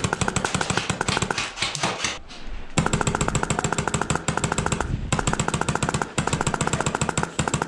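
Airsoft rifle firing long, rapid full-auto bursts, each shot a sharp click, with a short break a little after two seconds in and a few brief pauses after.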